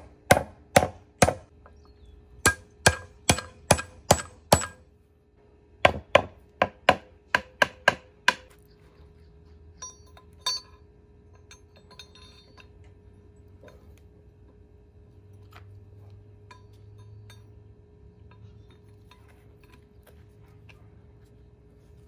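Hand sledge striking a new U-joint's steel bearing cap to drive it into the yoke eyelet of a Dana 30 front axle shaft: three runs of sharp metal-on-metal blows, about two to three a second, over the first eight seconds or so. After that come a couple of lighter clinks and quiet handling of the parts.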